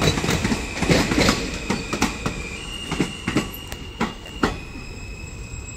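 New York City subway train running over rail joints: a series of sharp wheel clacks that space out and stop about four and a half seconds in, over a low rumble and a steady high squeal.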